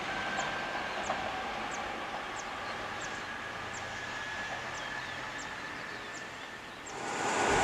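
Distant E464-hauled Intercity train running, a faint steady hum and rush, with a bird repeating a short high descending chirp about every two-thirds of a second. Near the end the train noise comes in suddenly louder.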